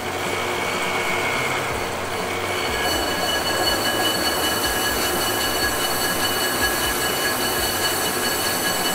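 Metal lathe turning a brake rotor: the machine runs steadily while the cutting bit squeals against the rotor face, a metallic squeal of several high tones that shifts in pitch about three seconds in.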